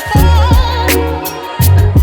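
Instrumental lo-fi hip hop beat: deep bass notes under regular drum hits, with a melodic line that bends in pitch.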